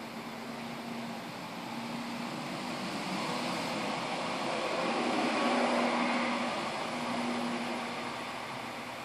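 A distant engine hum that swells to a peak about six seconds in, then fades.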